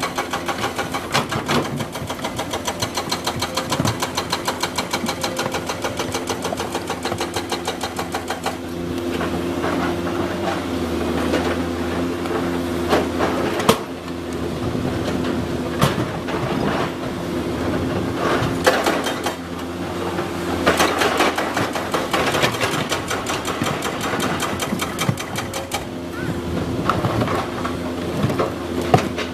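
Komatsu PC200 hydraulic excavator's diesel engine running steadily while the machine works, with a fast even pulsing for the first several seconds that turns more uneven. A few sharp knocks stand out partway through.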